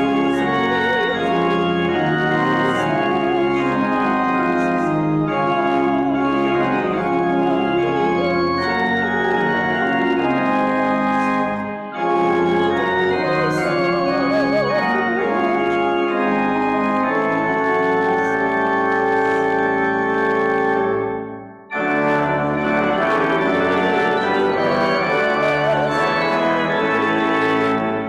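Church pipe organ playing a hymn in full, sustained chords. The phrases break off briefly about twelve seconds and about twenty-two seconds in.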